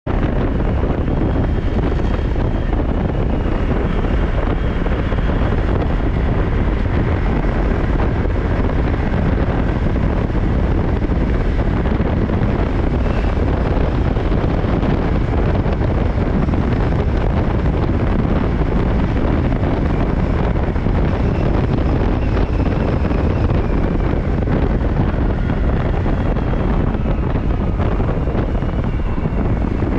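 Steady wind rush over the microphone of a motorcycle on the move, with the bike's engine and road noise running underneath as a faint whine.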